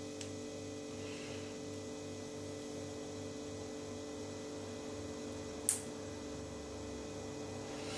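Steady electrical hum, with a low pulsing underneath and one sharp click a little before six seconds in.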